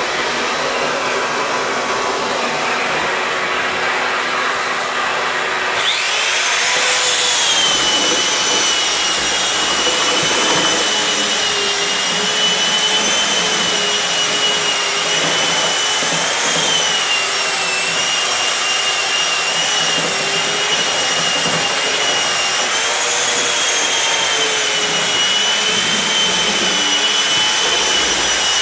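Drywall power sander with a vacuum attachment running steadily while sanding dried joint compound on sheetrock. About six seconds in, a higher motor whine rises in and holds, wavering slightly in pitch.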